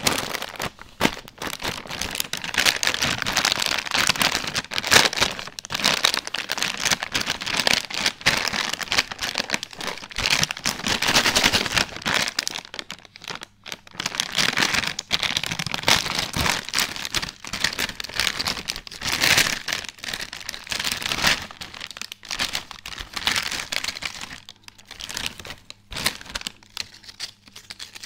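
Metallised-foil potato-chip packet crinkling and crackling continuously as hands squeeze, handle and open it, growing quieter near the end.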